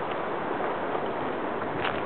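Steady wind noise outdoors, with a faint click near the end.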